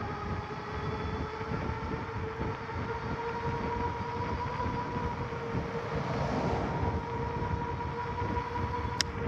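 A machine or vehicle running with a steady hum of two even tones over a low rumble. A single sharp click comes near the end.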